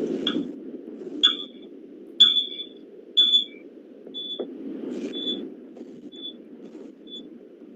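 A high-pitched electronic beep repeating about once a second, loud for the first three beeps and then fading to faint ones, over a steady low background hum.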